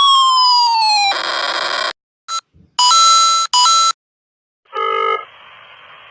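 A string of short electronic sound effects: a tone sliding downward in pitch, a short hissing burst, a brief blip, two buzzer-like beeps in quick succession, then a short tone followed by a fainter hiss.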